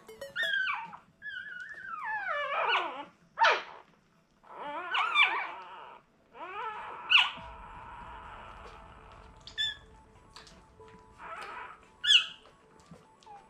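Newborn Irish Setter puppies squealing and whimpering: a run of high, thin cries that slide down in pitch, the loudest about three and a half, seven and twelve seconds in.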